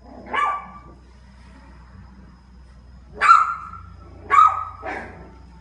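Small puppy giving short, high-pitched barks: one near the start, then three in quick succession about three seconds in.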